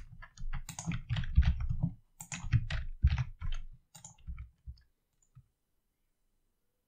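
Typing on a computer keyboard: a quick, uneven run of key clicks that stops about five seconds in.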